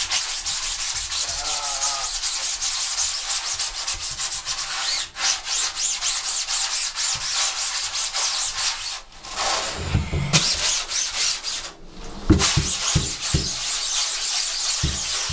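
A brush scrubbing emulsion remover into the mesh of a screen-printing screen to strip the old stencil: fast, scratchy back-and-forth strokes with a few short pauses. A few low thumps come in the second half.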